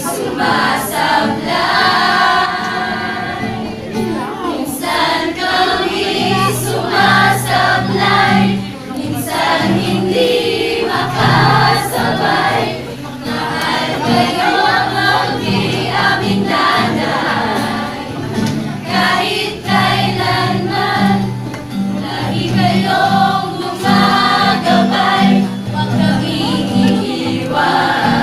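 A group of young people singing a song together in chorus, with guitar accompaniment under the voices.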